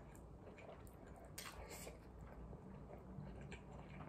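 Faint eating sounds of someone chewing and slurping bibimmyeon, Korean spicy cold noodles, with two brief slurps a little after a second in.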